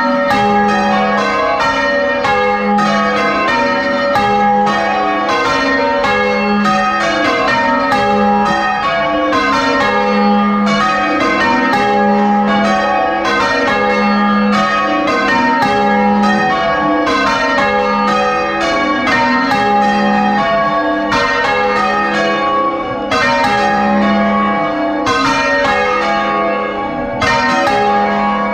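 A ring of six church bells, tenor 9–0–0 in A♭, being change-rung, heard close up in the bell chamber: a fast, even stream of overlapping strikes, with a deep note coming round about every two seconds.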